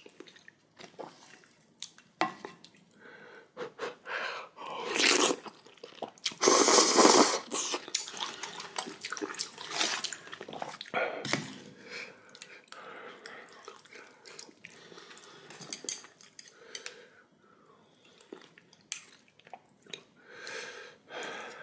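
Close-up eating sounds: a spoon clinking on a bowl, slurping and chewing of rice soaked in spicy ramen broth, with a few louder slurps, the longest about seven seconds in.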